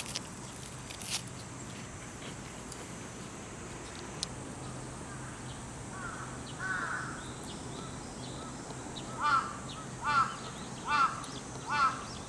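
Crow cawing: a couple of calls about six seconds in, then a steady series of caws a little under a second apart from about nine seconds in.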